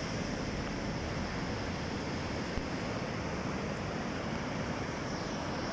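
Sea waves washing ashore: a steady, even rush of surf.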